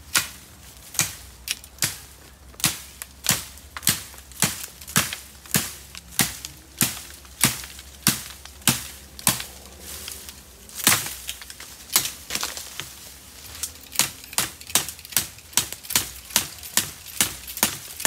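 A bamboo cane being chopped with a hand-held blade: a long series of sharp blows, about two a second, with a brief pause about halfway through.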